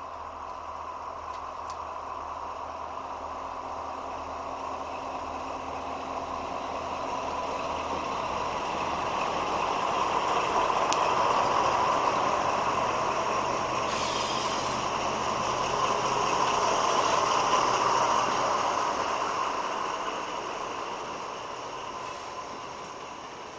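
SNCF BB 67000-family diesel locomotive approaching and passing close by, its engine running, followed by a train of empty flat wagons rolling over the rails. The sound grows louder into the middle, carries a brief high hiss about two-thirds of the way through, and fades as the wagons roll away.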